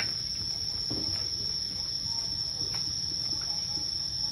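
Insects calling in one steady, unbroken high-pitched drone, over a low background rumble.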